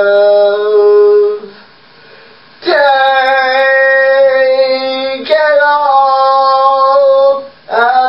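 A young man singing a ballad solo, holding long drawn-out notes with no instruments heard. The first held note breaks off about a second and a half in, then after a short breath he holds two more long notes, starting a third just at the end.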